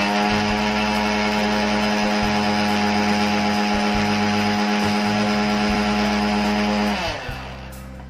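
Mixer grinder motor running at full speed with a steady whine, blending a jar of soy milk and cocoa, then winding down with falling pitch about seven seconds in.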